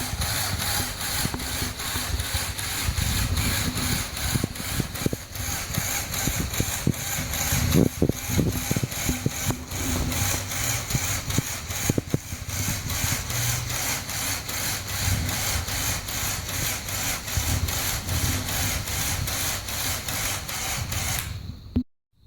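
Small electric motor in a Lego Technic Mercedes-Benz Arocs model running steadily, with a fast regular ticking from its moving parts and a few louder knocks. It stops abruptly near the end.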